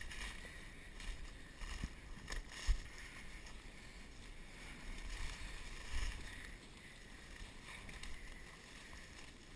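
Rustling footsteps of someone pushing through dense, dry brush and leaf litter, with a few sharp clicks along the way.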